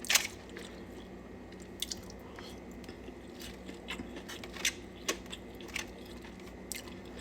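A person chewing a mouthful of vegetable rice close to the microphone, with scattered short wet mouth clicks and smacks.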